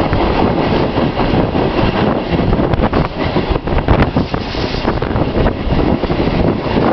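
SuperVia Série 1000 electric suburban train running at speed, heard from a window of the moving car: loud, steady rumble of wheels on the track with irregular clatter and knocks from the rails.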